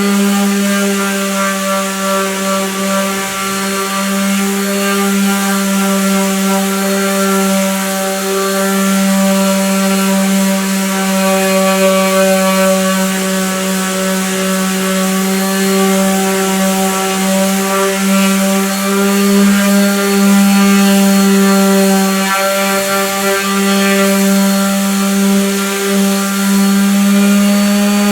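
An electric power tool runs continuously with a steady, loud hum, holding nearly the same pitch throughout.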